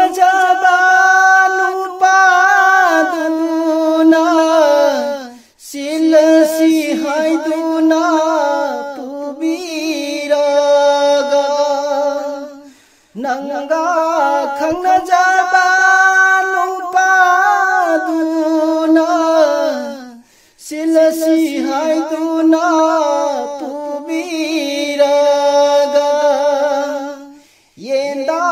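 A solo voice singing a naat unaccompanied: four long melodic phrases with wavering held notes, each broken off by a short breath.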